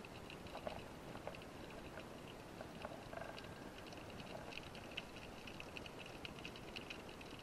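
Underwater ambience of the sea: a steady low hiss with irregular, crackling clicks and ticks, several per second, with a few lower knocks in the first half.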